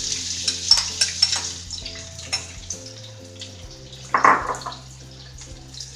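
Sliced onions sizzling in hot oil in a kadai, loudest at first and fading over the first few seconds as the oil cools around them. About four seconds in there is one short, loud clatter.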